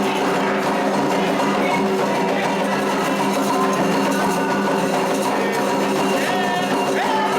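Candomblé ceremonial music with percussion, at a steady level without pauses.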